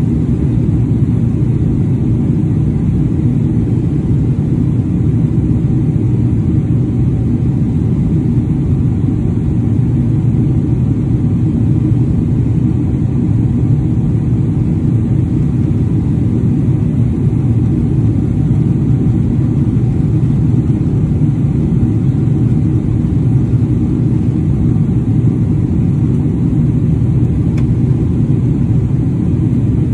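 Steady low roar of engine and airflow noise heard inside a jet airliner's cabin during descent, with a faint steady hum above it.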